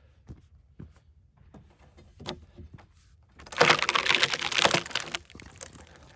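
Cedar log splitting open along its grain: a few scattered small cracks, then about halfway through a loud, dense crackle of wood fibres snapping and tearing for about a second and a half, dying away to a few last cracks.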